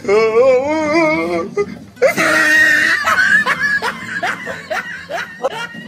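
Dubbed-in comic sound effects and laughter. A wavering, warbling voice-like tone lasts about a second and a half, a shrill burst comes about two seconds in, and then a string of short rising giggles follows.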